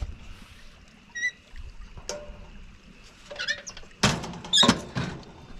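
Metal clanks and knocks from handling a small propane camp oven, with one short squeak about a second in. The loudest clanks, with a brief metallic ring, come about four to five seconds in.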